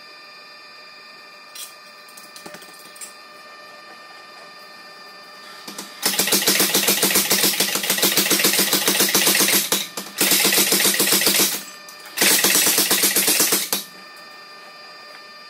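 Mechanical power hammer striking hot steel in rapid, evenly spaced blows: three runs of a few seconds each, starting about six seconds in, with short pauses between them.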